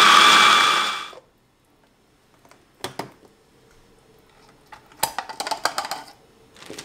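Stick blender with a chopper attachment running on a herb marinade, spinning down and stopping about a second in. Then two sharp knocks about three seconds in, and a run of plastic clicks and rattles about five seconds in as the chopper bowl's lid and blade are handled.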